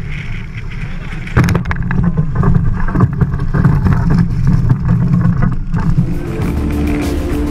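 Wind buffeting the microphone of an onboard camera on a fast-sailing racing catamaran, with water rushing past the hull; it turns louder and rougher about a second and a half in. Music with steady held notes comes in near the end.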